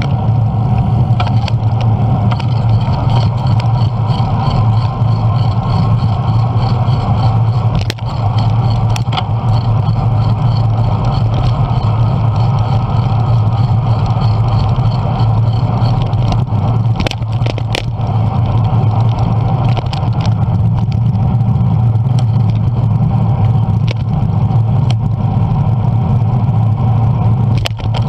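Steady rumble of a bicycle ride picked up by a camera mounted on the bike: road vibration and air rushing past the microphone, with a few sharp knocks from bumps in the lane.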